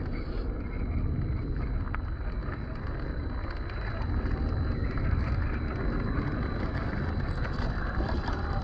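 Gmade GS02F Buffalo 1/10-scale RC crawler crawling over loose rocks: its electric drivetrain whirring, with tyres crunching on stones, and a low rumble of wind on the microphone.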